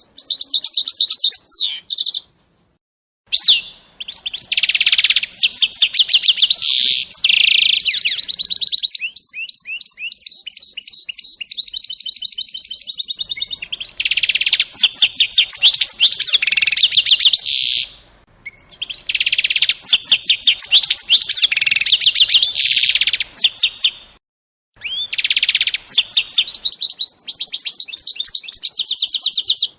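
Small songbird singing long, rapid song phrases of trills and chirps, broken by short pauses about two seconds in, at about 18 seconds and at about 24 seconds.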